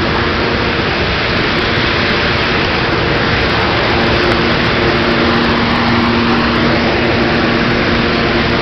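Steady, loud mechanical drone with a constant low hum running under it.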